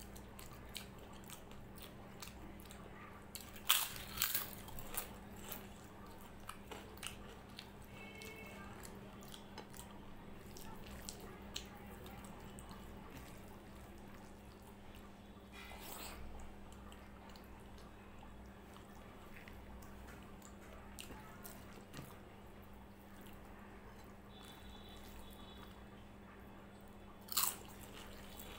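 Eating sounds: soft chewing and biting, broken by a few sharp crunches about four seconds in and again near the end.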